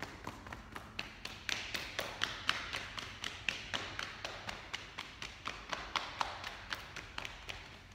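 Two people patting their own legs with open hands through leggings and trousers: quick, uneven pats, several a second, overlapping.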